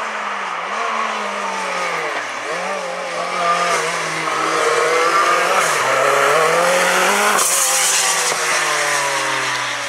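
Lancia Delta S4 Group B rally car's twin-charged four-cylinder engine driven hard through a bend: the revs dip and climb again twice. A loud hiss lasts about a second near the three-quarter mark, then the engine note falls steadily as the car pulls away.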